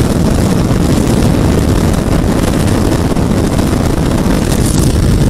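Yamaha R15M's 155 cc single-cylinder engine held flat out near top speed, at about 138 to 139 km/h, under a loud, steady rush of wind on the helmet-mounted microphone.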